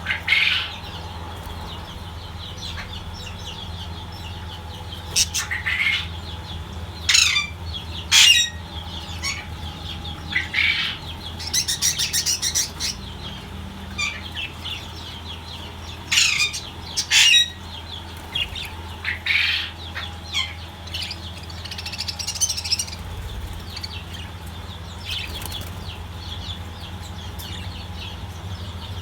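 Budgerigars chirping and squawking in short, high, scattered calls, sometimes several in quick succession, over a steady low hum.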